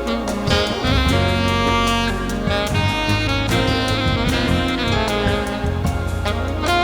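Live band playing an instrumental passage: a saxophone line over drum kit.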